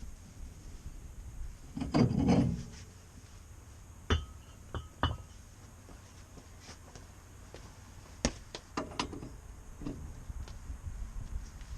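Hand work on metal car parts: a scraping rub about two seconds in, then a scattering of sharp knocks and metallic clinks as tools and parts are handled.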